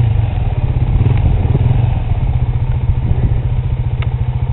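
Enduro dirt bike engine running at low revs with a fast, even beat.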